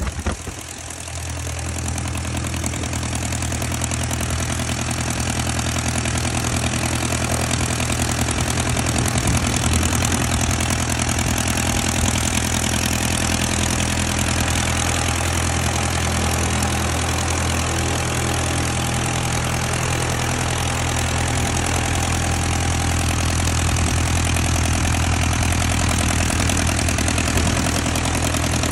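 Continental A65 air-cooled flat-four aircraft engine of an Aeronca L-3B Grasshopper idling with its propeller turning, on its first run-up after restoration. It drops in level sharply in the first second as the throttle comes back, then settles into a steady idle.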